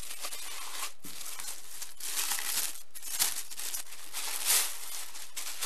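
Tissue paper crinkling and rustling in irregular bursts as it is unfolded by hand from around a wrapped planner cover.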